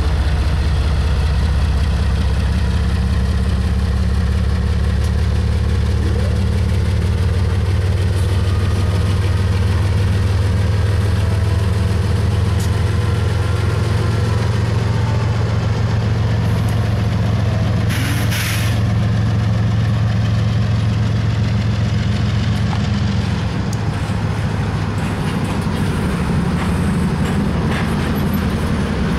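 Diesel freight locomotives running with a loud, steady low engine drone. About two-thirds of the way through there is a short burst of hiss lasting about a second.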